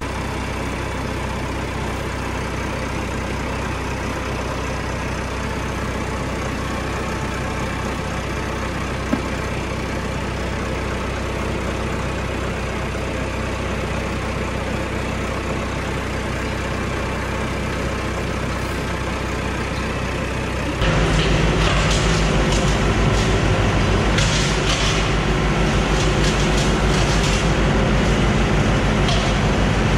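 A heavy vehicle engine running steadily. About two-thirds of the way through it switches abruptly to a louder engine with a fast, even pulse and scattered knocks.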